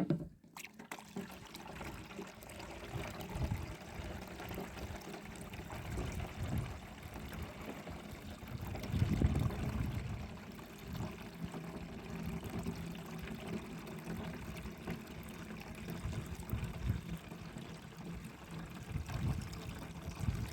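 Birch sap running into a container in a steady trickle, with occasional low thumps.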